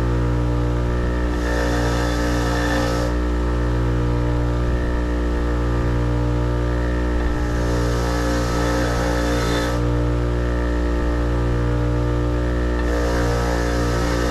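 Grinder running steadily with a constant hum. Three spells of added hiss come about a second and a half in, about halfway through, and near the end.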